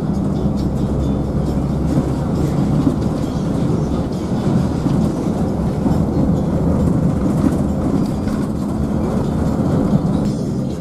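Steady drone of a coach bus's diesel engine and tyre noise, heard from inside the cabin at speed, with the cabin fittings rattling and clattering throughout.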